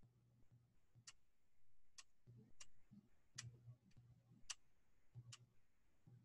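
Faint computer mouse clicks, about six at irregular intervals, against near silence: attempts to advance a slide presentation that won't move on.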